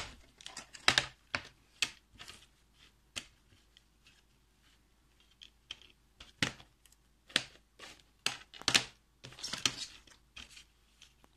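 Plastic DVD case being handled and opened: a scattering of light clicks and clacks at irregular intervals, bunched more closely over the last few seconds.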